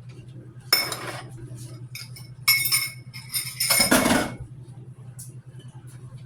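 Dishes and utensils clinking and knocking as they are handled, with sharp clinks a little under a second in, again around two and a half seconds, and a longer clatter near the middle, over a steady low hum.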